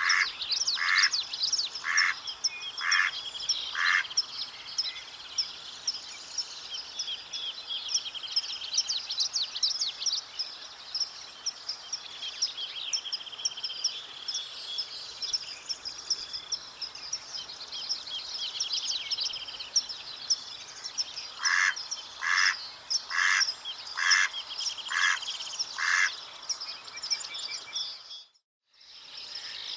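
Mallard quacking in two series of evenly spaced quacks, about one a second: five at the start and seven in the latter part. Other birds keep up a high twittering and trilling behind, and the sound drops out briefly near the end.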